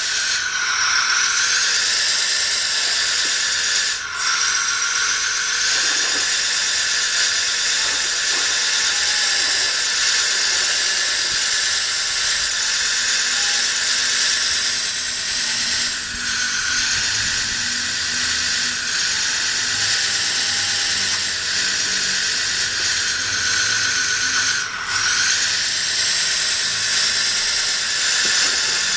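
A small high-speed electric motor running steadily with a high whine and hiss, cutting out for an instant twice.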